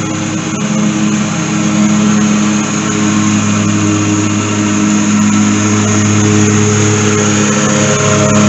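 Lawn mower engine running steadily at working speed, its hum getting slightly louder toward the end.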